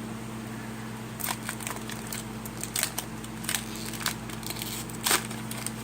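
Foil trading-card booster pack wrapper being torn open and peeled off: a run of irregular crinkles and crackles starting about a second in, the loudest near the end.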